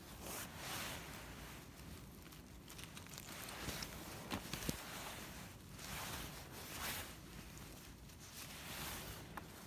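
Rustling of a jacket and dry leaf litter as someone shifts and reaches down on the forest floor, in soft swells every second or so, with a few small snaps about halfway through.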